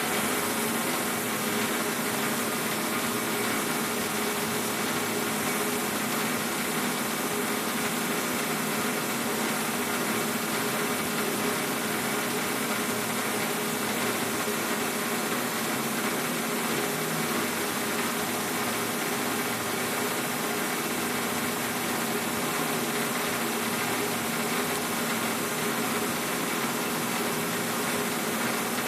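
Benchtop metal lathe running steadily at a constant pitch while a pen blank is turned on it.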